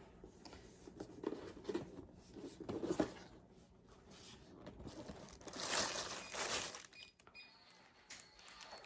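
Packaging rustling and crinkling as a box is unpacked by hand: light handling knocks in the first few seconds, then a longer crinkling rustle about six seconds in.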